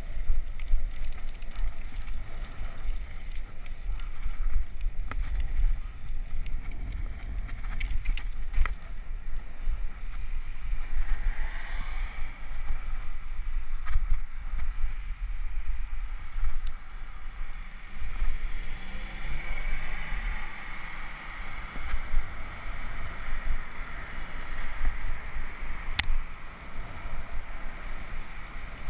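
Wind buffeting a bicycle-mounted action camera's microphone, a steady low rumble, over the hiss of bicycle tyres on wet pavement while riding. The hiss swells now and then, and there are a few sharp clicks, one near the end.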